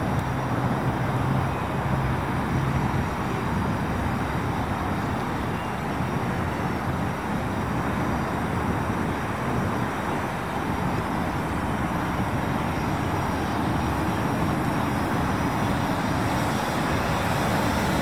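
Steady rushing outdoor noise with no distinct events, with a faint thin whine from the Parrot Anafi quadcopter's propellers as it hovers and turns on the spot.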